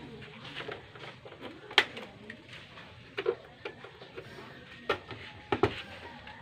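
Scattered sharp clicks and knocks from hands and a small tool working at a Suzuki underbone motorcycle's seat, about five of them, the loudest about two seconds in. The engine is not running.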